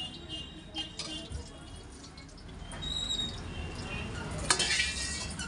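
A metal ladle scraping and clacking against a steel wok in a quick run about four and a half seconds in, over a steady low rumble.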